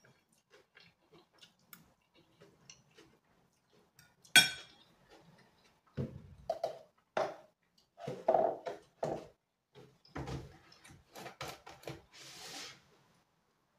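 Faint small clicks, then a sharp metal fork clinking once against a ceramic plate. Next come a run of knocks and thuds as a cup and a plastic jug are handled on the table, ending in a short rustle as the jug's cap is worked.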